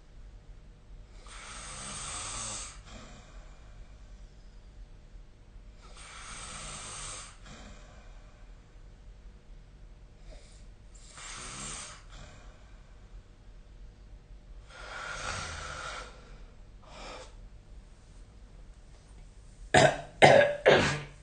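A sleeping person snoring: four slow, noisy snoring breaths about four to five seconds apart, then three short, loud coughs near the end.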